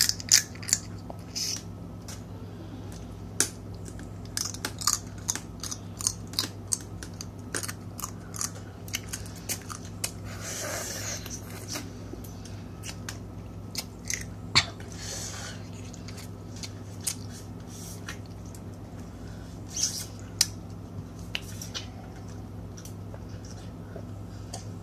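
Crab shells being cracked, bitten and picked apart by hand while eating, with chewing: a scattered run of sharp clicks and cracks, loudest right at the start and about fourteen and a half seconds in. A steady low hum runs underneath, and a brief rushing sound comes about ten seconds in.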